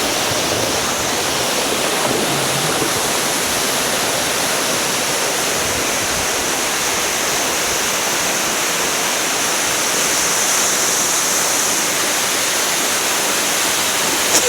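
Steady rushing water of the Navua River whitewater, a loud unbroken noise that swells slightly about ten seconds in.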